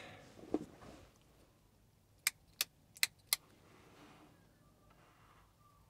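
A breath and a knock, then four sharp clicks in quick succession about two seconds in. No compressor motor runs: the air compressor is failing to start.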